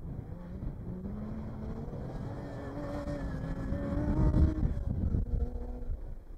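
Land Rover Defender-based off-road race truck accelerating past on a dirt track, its engine climbing steadily in pitch. It is loudest a little past four seconds in as it passes closest, then drops to a lower pitch and fades as it pulls away.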